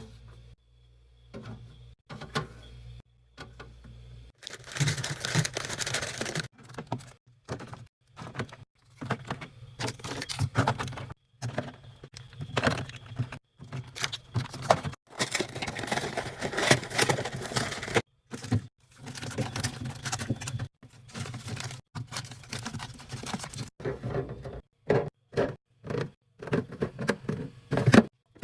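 Items being handled and set down while a fridge is stocked: short clicks, knocks and clatter mixed with stretches of rustling, broken by abrupt cuts to silence.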